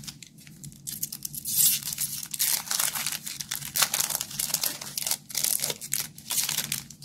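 Foil Magic: The Gathering booster pack wrapper being torn open and crumpled by hand. A dense, irregular run of crackling starts about a second in and goes on until near the end.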